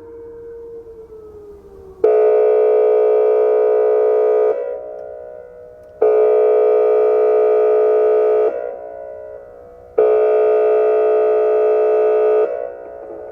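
Whelen WPS 2805 electronic warning siren sounding three steady, chord-like blasts of about two and a half seconds each, four seconds apart, with echoes ringing out between them. The siren is malfunctioning during its test and not running its programmed tone sequence.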